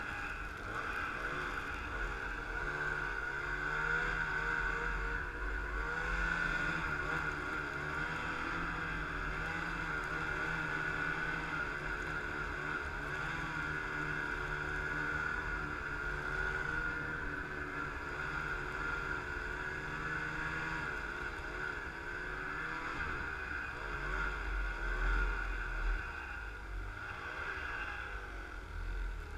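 Snowmobile engine and drive running steadily under throttle as the sled travels over snow, its pitch wavering up and down a little with the throttle, easing off briefly near the end.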